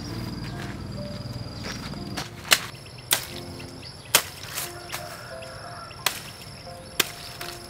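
Knife blade striking cactus stalks, about five sharp chops spaced half a second to a second apart, beginning about two and a half seconds in, over background music.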